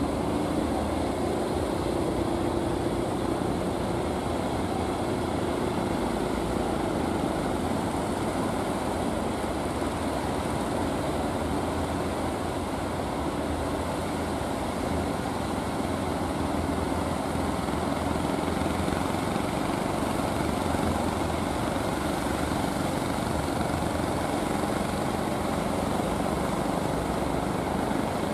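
A fishing boat's engine running steadily under load as the boat pushes through breaking surf, mixed with the rush of waves and spray.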